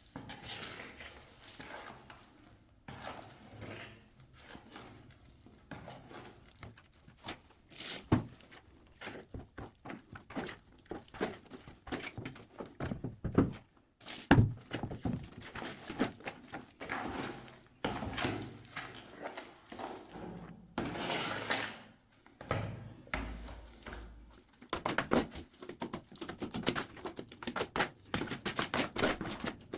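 A plastering trowel scraping and knocking as plaster is mixed and worked. It is irregular, with a few sharper thunks about 8 and 14 seconds in, short scrapes, and rapid clicking and tapping near the end.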